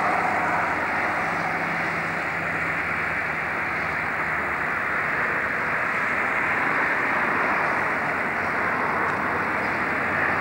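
Steady vehicle noise: an even rush with a faint low engine hum underneath, holding level throughout.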